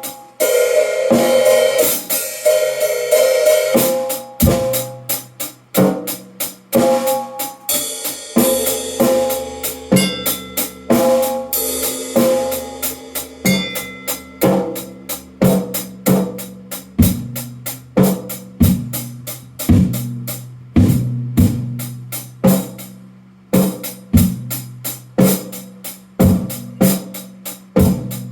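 Drum kit played in a steady beat, with cymbal wash in the first few seconds and again around the middle, over backing music that holds sustained keyboard and bass notes.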